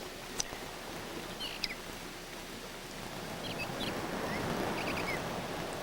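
Outdoor ambience: a steady hiss with a scattering of short, high bird chirps and two small clicks in the first couple of seconds.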